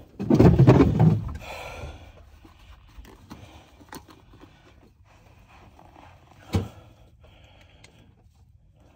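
Close rustling and knocking from gear being handled right by the microphone, loudest in the first second, then a single dull thump about six and a half seconds in.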